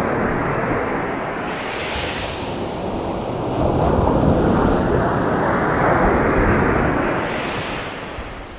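Sea waves breaking and washing up a sandy beach: a broad rush that swells about four seconds in and ebbs away near the end.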